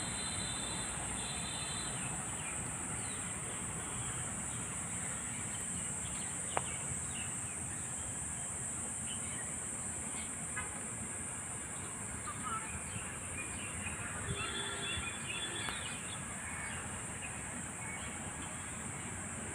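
Outdoor park ambience: a steady high-pitched insect drone throughout, with scattered bird chirps, busiest about fourteen seconds in, over a low background rumble. One sharp click about six and a half seconds in.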